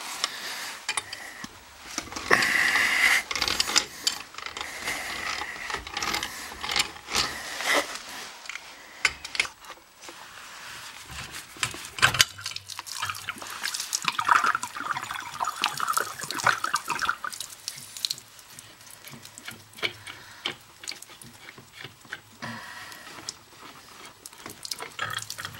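Leftover water running and dripping out of a water line, opened by pulling off the water meter, into a bucket, with scattered clinks and knocks of the metal fittings.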